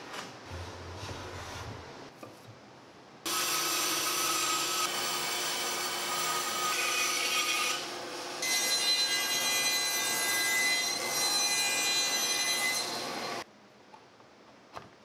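A hand plane scraping along wood for the first few seconds. Then a bandsaw runs and cuts through a wooden panel for about ten seconds: loud cutting noise over a steady whine, with a brief break near the middle. It stops abruptly near the end.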